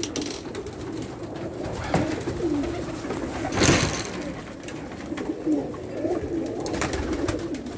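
Several pigeons cooing, their calls overlapping. A brief burst of noise comes about three and a half seconds in.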